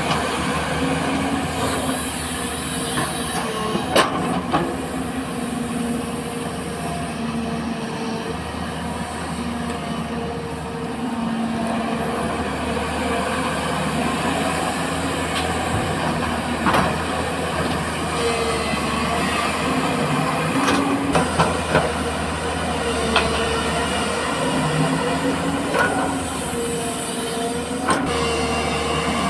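JCB 4DX backhoe loader's diesel engine running under load, its pitch rising and falling as the hydraulics work. A few sharp metallic knocks and clanks come through, from the bucket and linkage.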